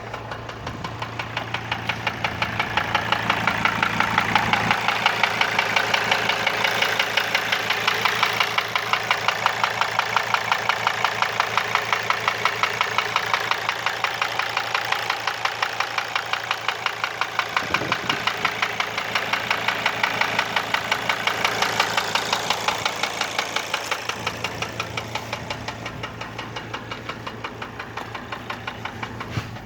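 Mercedes W210 2.7 CDI inline five-cylinder diesel (OM612) idling, with a steady, even knock repeating several times a second. New hydraulic lifters and injectors have not cured the knock.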